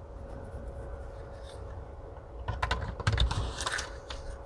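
Light plastic clicks and taps from handling a car door window-switch panel and its switch assembly, in a quick cluster from about two and a half to four seconds in.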